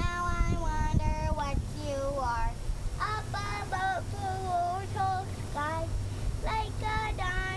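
A young girl singing a simple tune, holding long notes that slide up and down between short breaks.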